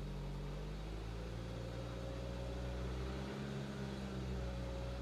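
Car engine held at a raised speed of about 2,000 rpm, a steady hum whose pitch drifts slightly up and down as the throttle is held by foot.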